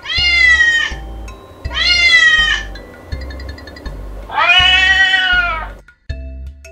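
Three cat meows, the third the longest, over background music; after the last meow only the music goes on.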